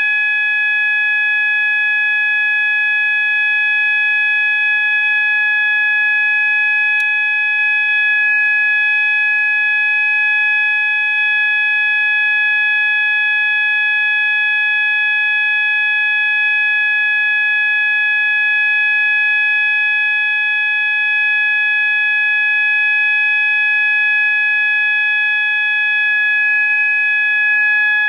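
System Sensor MASS fire alarm sounder/strobe sounding under test: one loud, steady, unbroken alarm tone that holds the same pitch without pulsing or breaks.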